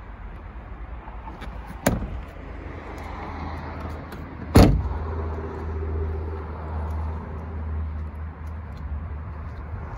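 A Volkswagen Golf Cabriolet's car door shut with a sharp thump about four and a half seconds in, after a smaller thump about two seconds in. A steady low rumble follows.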